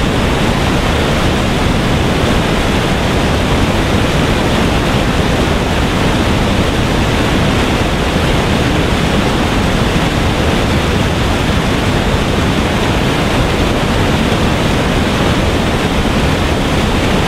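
Water pouring over a mill weir and crashing into the churning white water at its foot: a loud, steady rush.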